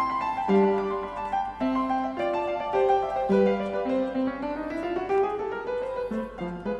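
Background piano music with quick-moving notes, including a rising run about two thirds of the way through.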